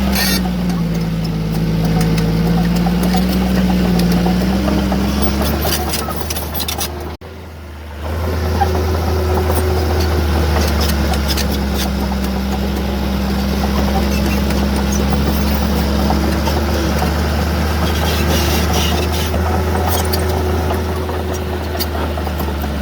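Heavy diesel earthmoving machinery running under load, its engine pitch sagging and recovering in the first few seconds, then holding steady, with scattered short clicks. The sound drops out briefly about seven seconds in.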